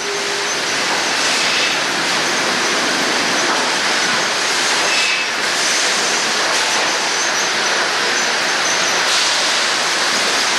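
Sawmill machinery running, a loud, steady, even noise with a faint high whine in it.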